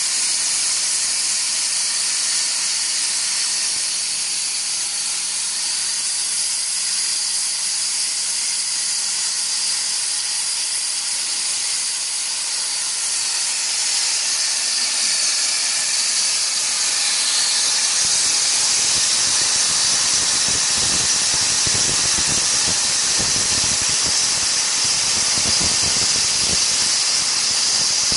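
CNC plasma cutting torch cutting sheet steel: a loud, steady high-pitched hiss of the plasma arc and air jet. A rougher low crackle joins in about two-thirds of the way through.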